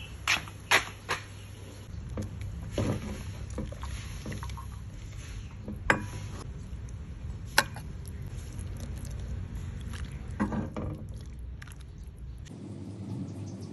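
Scattered sharp knocks and clicks over a steady low rumble; the rumble cuts off suddenly near the end.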